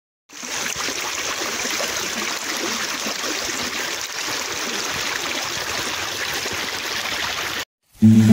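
A small, fast-flowing stream rushing steadily over its bed. It cuts off suddenly near the end, and plucked-string music starts.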